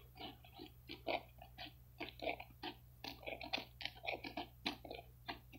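Small bits of dry hickory wood being broken off a larger piece: a faint run of irregular crackles and snaps.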